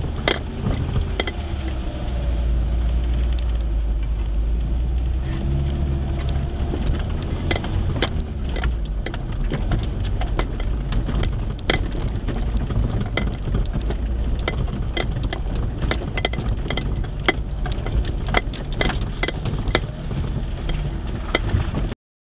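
Suzuki Vitara 4x4 driven slowly over a rutted dirt track, heard from inside the cab: a steady low engine rumble, heaviest a few seconds in, with frequent knocks and rattles as the vehicle jolts over the bumps.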